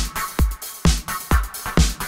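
Background music with a steady kick-drum beat, a little over two beats a second.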